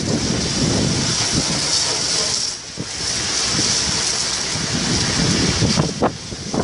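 Wind buffeting the microphone over the steady hiss of a fire hose jet spraying water onto a burning combine harvester.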